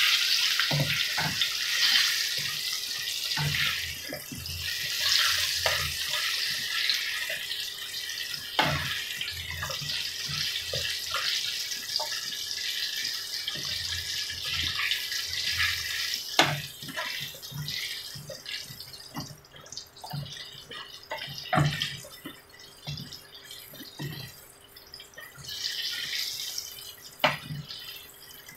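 Eggplant tempura deep-frying in hot oil in a wok: a steady sizzle with crackling that thins out about two-thirds of the way through. A wooden spatula knocks against the wok now and then as the pieces are turned.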